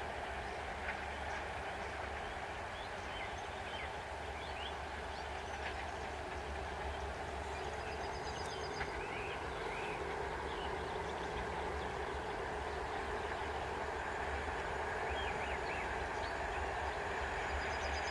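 Steady rumble of a distant approaching passenger train hauled by an EP07 electric locomotive, growing slowly louder, with scattered short bird chirps over it.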